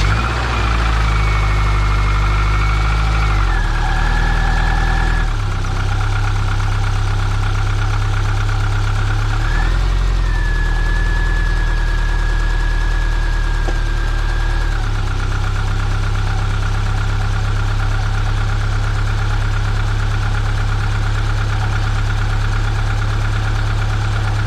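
Subaru Impreza 2.5RS's 2.5-litre flat-four idling just after starting, the idle stepping down a few times as it settles, with a steady high whine. A light knocking keeps time with engine speed; the owner suspects rod knock but is not sure, as it doesn't sound violent and the oil shows no shavings.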